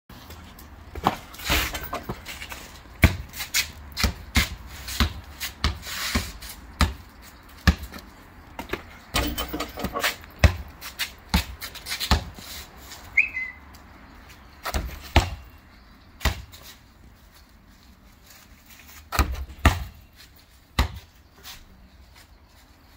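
Basketball bouncing on concrete as it is dribbled: quick, uneven runs of sharp bounces for the first twelve seconds or so, then a few spaced-out bounces.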